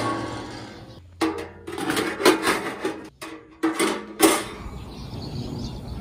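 Stainless steel pan lid and wire cooking grate of a homemade gastronorm-pan grill being handled: a series of metallic clanks and rattles with a short ringing, loudest about two and four seconds in.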